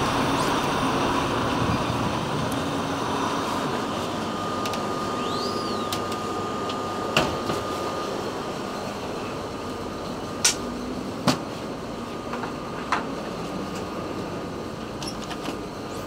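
Steady rushing shop ambience, with a thin held tone for a few seconds and four or five sharp clicks or taps in the second half.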